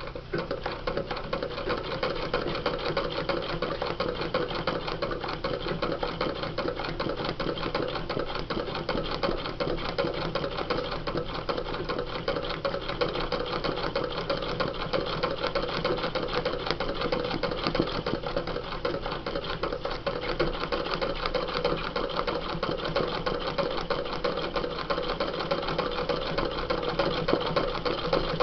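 Domestic sewing machine starting up and running steadily at speed, its needle stitching rapidly through tissue paper and denim held in an embroidery hoop.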